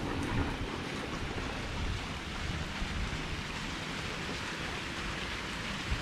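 Steady rushing noise of fountain water splashing, with wind on the microphone adding a low rumble.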